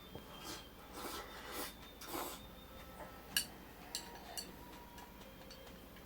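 Handling noises: a few soft rubbing swishes, then three short, sharp clicks in the second half.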